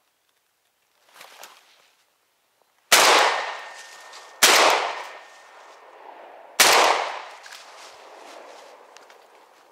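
Shotgun fired three times, about a second and a half and then two seconds apart. Each shot trails off in a long echo.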